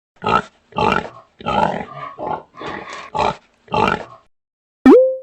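Pig grunting: about seven short, rough oinks over four seconds. Near the end, a loud sudden click with a brief upward-gliding tone, the loudest sound.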